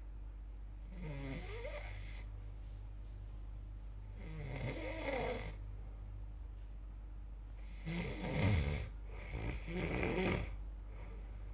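A person snoring: four rough, rattling snoring breaths at uneven intervals, the last two close together and the loudest.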